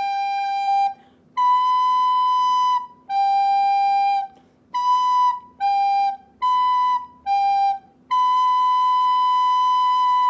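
Soprano recorder playing a two-note interval exercise, alternating B and G in separately tongued notes: longer notes at first, then quicker ones, ending on a long held B.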